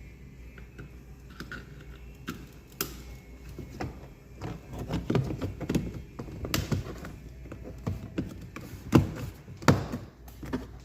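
Plastic car interior trim and a switch panel being handled and snapped into place: scattered clicks and knocks, with two louder knocks near the end.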